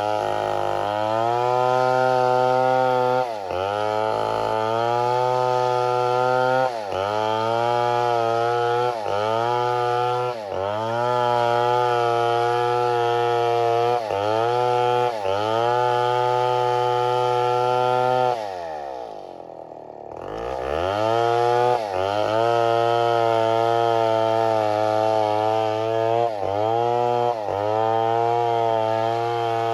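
Chainsaw running at high revs while cutting, its pitch dipping briefly and recovering every second or two. About eighteen seconds in, it drops to idle for a couple of seconds, then revs back up and cuts on.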